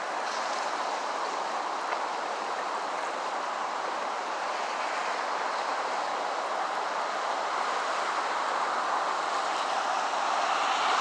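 Steady rushing noise with no pitch to it, growing louder near the end.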